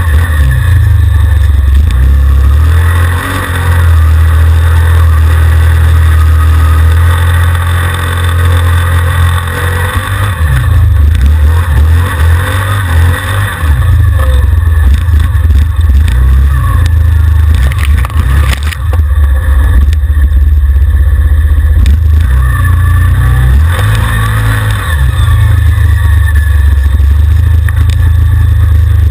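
ATV engine running loud and close as the quad is ridden along a muddy trail. Its pitch rises and falls as the throttle opens and closes, with a few brief lulls.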